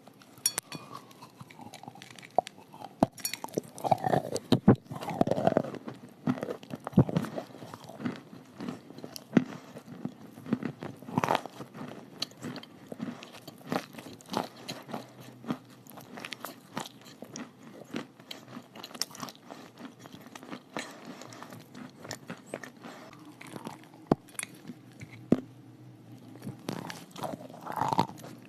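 Person biting and chewing chalk with clay paste: many sharp, irregular crunches and crackles, louder in the first few seconds.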